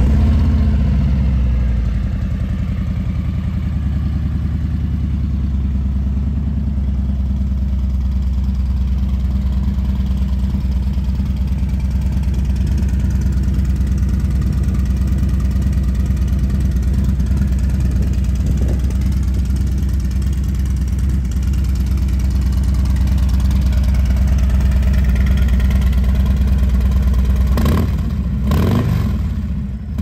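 A 2023 Harley-Davidson Breakout's 117 cu in Milwaukee-Eight V-twin, breathing through a Rinehart 2-into-1 exhaust on a stage one setup, fires up right at the start and settles into a loud, steady idle. A couple of quick throttle blips come near the end.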